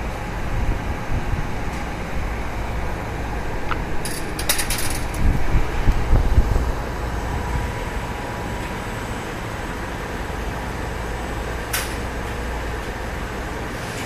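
CNC roll-up door spring coiling machine running with a steady low drone. It grows louder and rougher for a few seconds about a third of the way in, with short hissing bursts there and again near the end.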